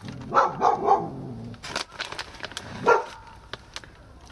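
A dog barking: a quick run of three barks in the first second, then one more about three seconds in, with scattered light clicks between them.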